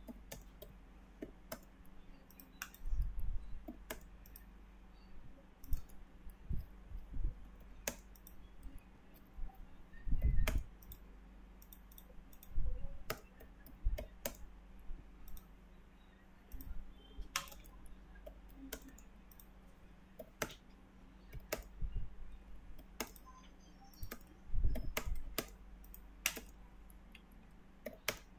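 Computer mouse clicks and keyboard typing, irregular and scattered throughout, with a few louder dull thumps about 3, 10 and 25 seconds in. A faint steady low hum runs underneath.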